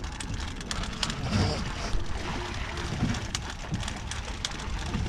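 Wind buffeting the microphone and water sloshing around a small boat drifting offshore, with scattered light clicks and knocks of gear being handled.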